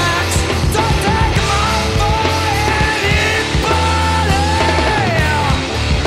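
Loud math rock band playing: distorted guitars, heavy bass and drums, with a wavering sung vocal line over the top.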